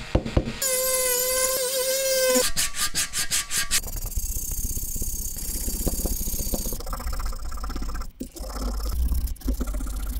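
A small rotary tool with a wire brush whines against brass blow-torch parts for the first couple of seconds. It then gives way to steady scratchy rubbing as gloved hands work the brass pieces by hand.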